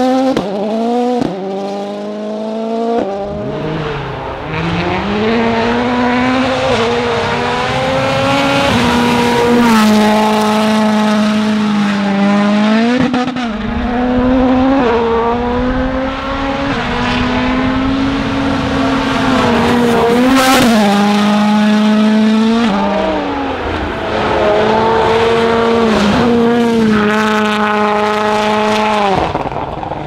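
M-Sport Ford Fiesta WRC rally car's turbocharged four-cylinder engine at full throttle. The revs climb and drop sharply at gear changes several times.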